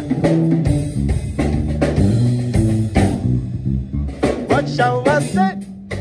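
Electric bass, a Fender Jazz Bass, playing a busy funk line of changing low notes in a live jam with a drum kit, the drums hitting throughout.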